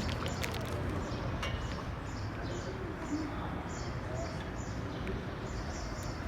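Small birds chirping in short repeated calls, about two a second, over a steady low background noise.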